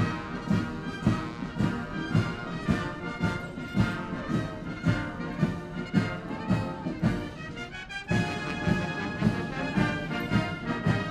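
Guards military band playing a march on trombones, trumpets and other brass, with a steady beat about twice a second.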